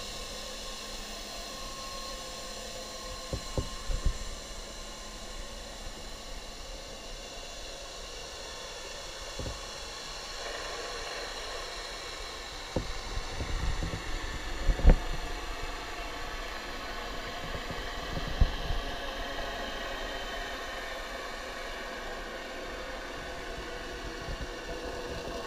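A boat motor's steady hum with several whining tones, heard underwater, with scattered low thumps and knocks, the loudest about fifteen seconds in.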